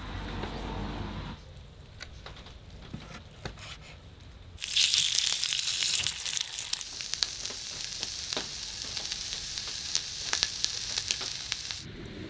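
Food sizzling in a hot pan. The sizzle starts abruptly about four and a half seconds in, loudest for the first couple of seconds, then goes on as a steady hiss with frequent crackling pops until it cuts off near the end.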